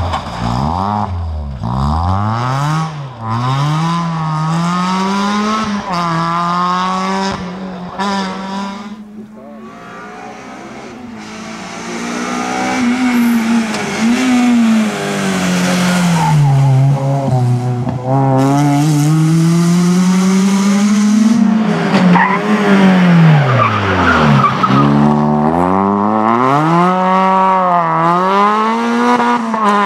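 Peugeot 206 rally car engine revving hard, its pitch climbing and dropping again and again with gear changes and lifting off for corners. It goes quieter for a few seconds around ten seconds in, then runs loud, with a deep drop in pitch and a climb back up a little before the end.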